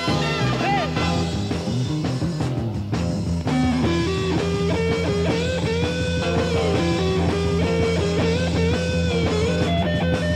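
Instrumental passage of a 1968 psychedelic rock recording by a five-piece band, with electric guitar over bass and drums. A wavering melodic line comes in about four seconds in.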